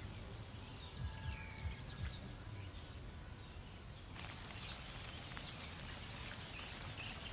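Countryside ambience: birds give short falling whistled calls now and then over a steady hiss, which grows louder about four seconds in.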